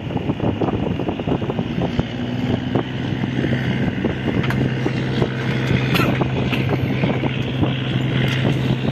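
Boat engine running with a steady low hum, against wind buffeting the microphone.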